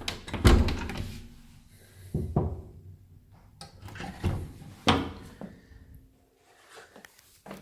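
A few separate knocks and bumps, the loudest about half a second in, then smaller ones around two, four and five seconds in and one near the end.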